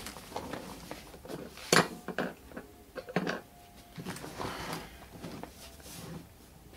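Handling noise of tools and hard plastic suitcase parts on a wooden workbench: a few sharp knocks and clacks, the loudest about two seconds in, then softer rubbing and shuffling.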